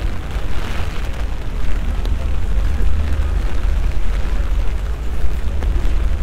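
Wind buffeting the microphone in a steady, fluttering low rumble, over the even hiss of a rain-soaked cobbled street.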